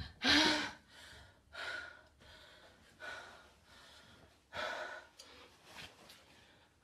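A woman's breathing: a voiced sigh at the start, then several loud breaths about every second and a half.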